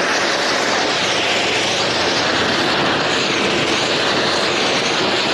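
Ground firework fountains (flower pots) spraying sparks with a loud, steady hiss, without bangs.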